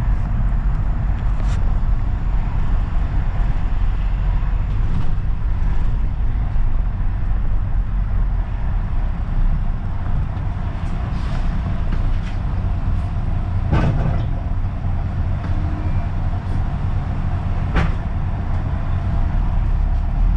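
Inside a London double-decker bus: a steady low engine and road rumble as the bus slows and stands at a bus stop, with a few sharp knocks and rattles from the bodywork, the loudest two late on.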